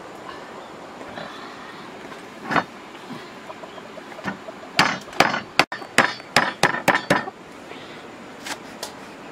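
Cleaver chopping lemongrass stalks on a thick round wooden chopping block: one sharp knock, then a quick run of about ten chops, roughly four a second.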